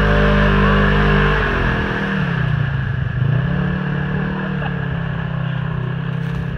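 Side-by-side UTV engine revving hard as its tyres spin through mud. The pitch dips about two seconds in, then climbs back and holds steady as the machine pulls away, getting a little quieter.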